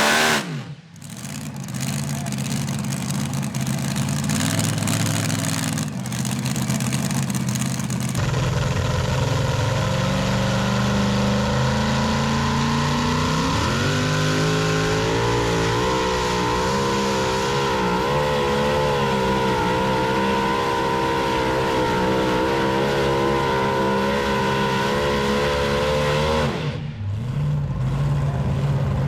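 A pulling vehicle's engine running at a tractor pull. About halfway in it climbs to full revs and holds there for around twelve seconds with its pitch wavering under load, then drops off abruptly near the end.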